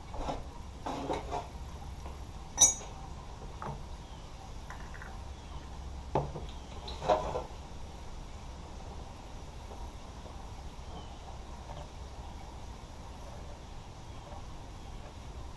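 A few light metallic clinks and knocks of hand tools and parts being handled, the sharpest about two and a half seconds in and two more around six and seven seconds, over a steady low hum.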